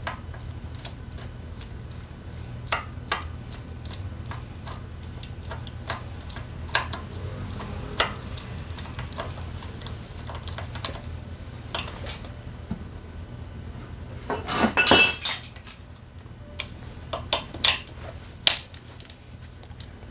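Metal tools and small engine parts clinking and knocking against each other: scattered single clicks, with a louder rattling cluster about fifteen seconds in. A steady low hum runs underneath.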